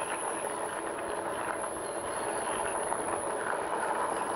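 Steady rolling and wind noise from riding an electric fat-tyre bike along a path, an even rush with no distinct events.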